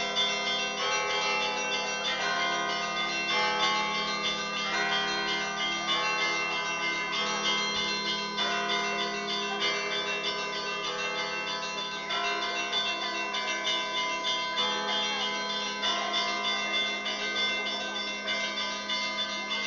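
Orthodox church bells pealing from a wooden belfry. Several bells of different pitches are struck in quick succession without a pause, their tones ringing on over one another.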